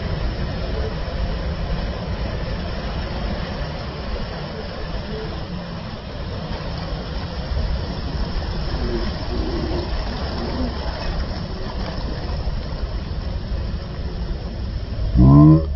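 Ocean surf breaking and washing up the sand as a steady, low, rumbling noise, with faint voices of bathers in the middle. Near the end a person lets out a loud, drawn-out shout.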